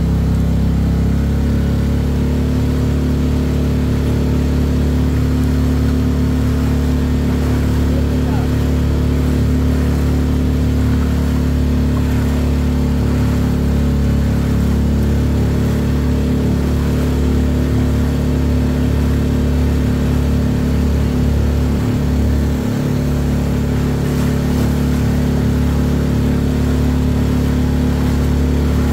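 Speedboat engine running steadily at cruising speed, a constant low drone, with water rushing along the hull.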